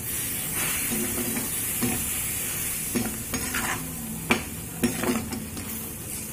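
A spatula stirring and scraping chayote curry, with its ground coconut masala just added, around a pan over the steady hiss of the curry cooking. A few sharper scrapes come about three and four to five seconds in.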